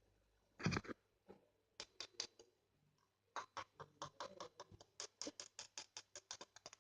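A knock just under a second in, then light clicks that turn into a quick run of small taps, several a second, from about halfway: a small plastic ink tube being tapped and worked by hand over a container to get the ink to drip out.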